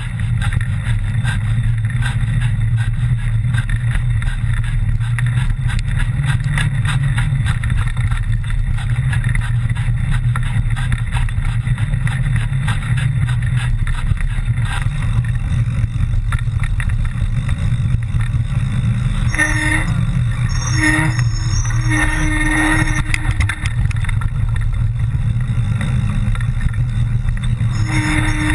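Mountain bike descending a rough trail, heard on a bike- or helmet-mounted camera: a steady low rush of wind on the microphone with the constant fine rattle of the bike. In the last third a humming tone comes and goes several times.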